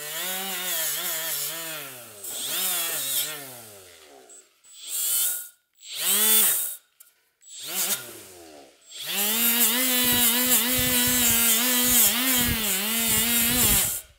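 Cordless die grinder spinning up and down in short trigger bursts, its motor whine rising and falling in pitch. Near the end it runs steadily for about five seconds with a rattling scrape as the wheel works the bare metal of a Brembo brake caliper, cleaning off leftover residue before priming.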